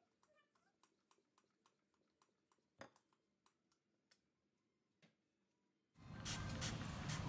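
Near silence with faint scattered ticks; about six seconds in, a soft, even hiss starts.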